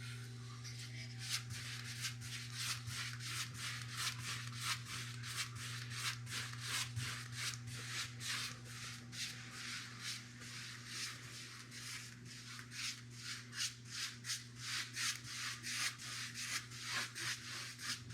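Paintbrush stroking primer onto a drywall patch, a scratchy swish of bristles on the wall about twice a second in quick back-and-forth strokes.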